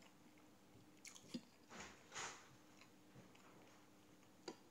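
Faint sounds of a person eating: quiet chewing of a mouthful, with a few soft clicks of a fork and knife on a plate, one near the end.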